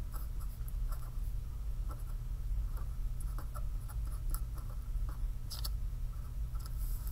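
Pen writing on a sheet of paper: short, irregular scratching strokes, over a steady low hum.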